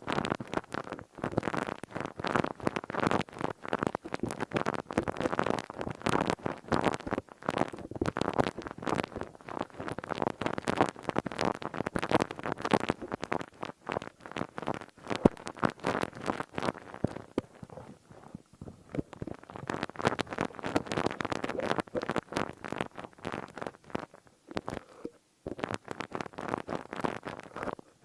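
Crisp crinkling and crackling of a crinkly material worked close to the microphone, a dense run of tiny crackles that thins out for a moment in the middle and again near the end.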